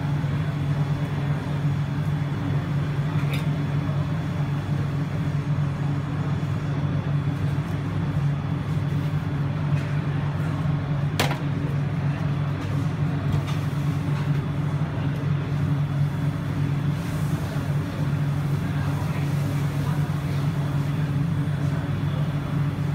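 A steady low mechanical hum that does not change, with a single sharp clack about eleven seconds in.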